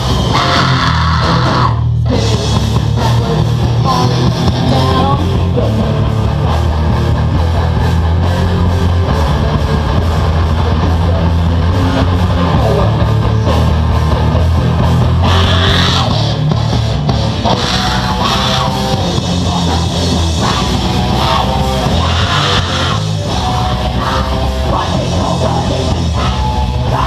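A rock band playing live and loud: distorted electric guitars and a drum kit, with a sharp momentary stop about two seconds in.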